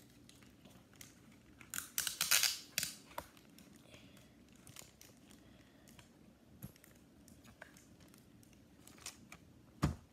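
Sticky tape being pulled off a roll and handled: a cluster of short rasps about two seconds in, then scattered light clicks and a thump near the end.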